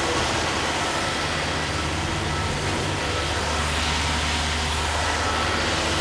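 A farm engine running steadily: an unbroken low mechanical drone and hum.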